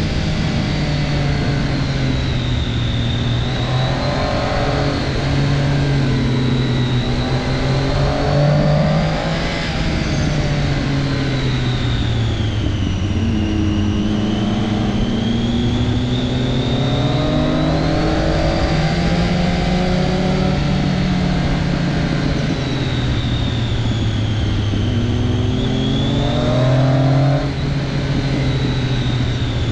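Triumph Daytona 675's inline three-cylinder engine running under way, its pitch rising and falling slowly over several seconds at a time, with a high whine that wavers along with it.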